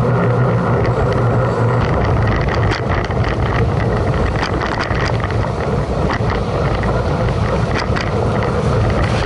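Mountain bike riding up a paved road: steady wind and tyre rumble on the microphone, with scattered light clicks and knocks from the bike.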